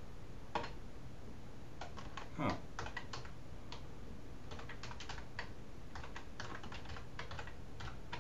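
Typing on a computer keyboard: scattered keystrokes at an uneven pace, with one brief louder sound about two and a half seconds in.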